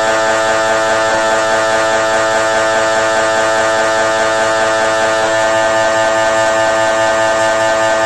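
GE MRI scanner running a scan sequence: its gradient coils make a loud, steady buzzing drone of several held tones over a fast, even pulsing.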